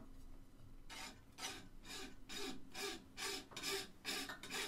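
Large flat hand file worked across a red deer antler knife handle, filing it down, in even strokes about two a second starting about a second in.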